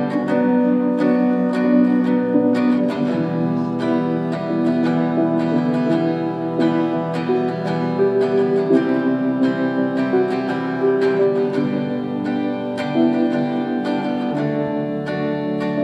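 Instrumental introduction of a slow song led by plucked acoustic guitar, with notes picked in a steady pattern.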